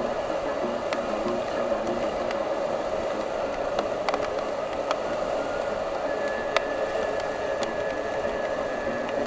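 Steady roar of a large whitewater rapid: rushing, churning water at an even level.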